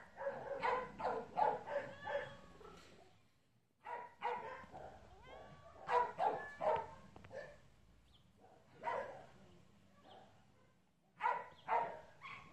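A dog barking in quick bouts of several barks each, about four bouts with short pauses between them.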